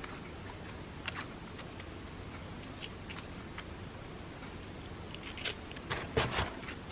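Crepe paper being torn by hand into rough petal shapes: a few short, faint crackling tears, with a louder cluster of them about six seconds in.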